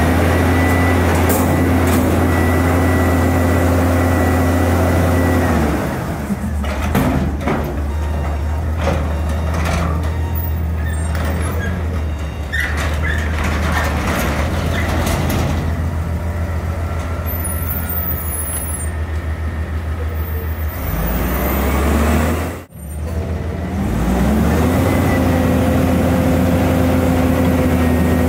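2016 Autocar front-loader garbage truck with an Amrep body, its engine held at raised revs with a thin steady whine. It drops back to a lower, uneven run about six seconds in, then climbs back up to the same high steady speed near the end.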